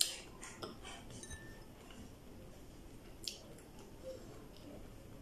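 Soft eating and handling sounds of raw okra: a sharp click at the start and a few lighter clicks in the first second, then low room noise with another click about three seconds in.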